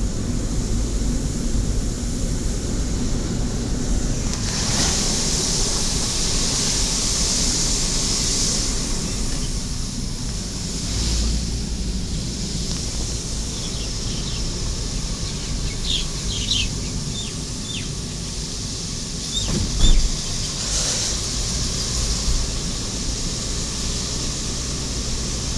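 Road and wind noise from a moving vehicle: a steady low rumble with a rushing hiss that swells twice, about five seconds in and again about twenty seconds in. A few short high chirps come in the middle, and a single thump shortly before the second swell.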